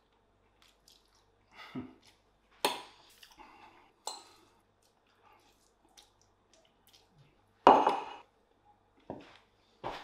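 Eating sounds: fettuccine being slurped off a fork, with a few sharp clinks and knocks of the fork and the ceramic plate, the loudest about three-quarters of the way through.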